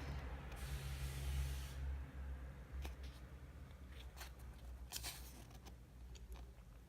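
Pages of a thick album photobook being turned by hand. A rustling sweep comes over the first two seconds, then a few light flicks and taps of paper.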